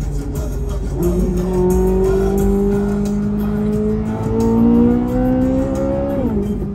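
Corvette C8 Z06's flat-plane-crank V8 heard from inside the cabin, pulling hard under acceleration with its pitch rising steadily for about five seconds, then dropping quickly near the end.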